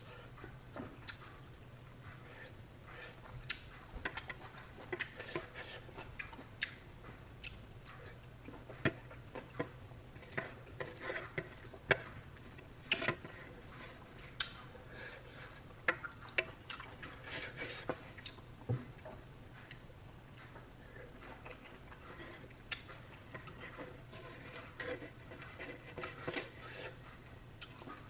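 Utensils clinking and scraping against dishes in irregular, scattered knocks over a faint steady low hum.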